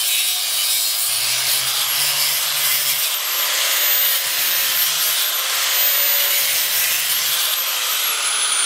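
Electric angle grinder with a worn cutoff wheel cutting through the aluminum windings of an AC fan motor stator: a steady, harsh grinding hiss over the motor's high whine. Near the end the grinder is released and its whine falls as it spins down; the wheel is too worn to cut all the way through.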